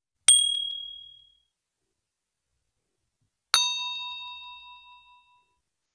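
Two bell-like 'ding' sound effects, of the kind edited onto a 'press the bell' subscribe prompt. A short, high ding comes about a third of a second in. A lower, fuller ding comes about three and a half seconds in and rings out for a second or more.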